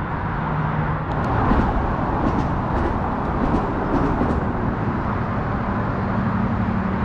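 Steady traffic noise from vehicles crossing the highway bridge overhead: a continuous rumble of tyres with a faint low hum.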